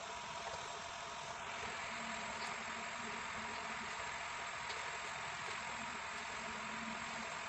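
Paint spray gun hissing steadily over the hum of its running air compressor, the hiss growing stronger about a second and a half in as the spraying picks up.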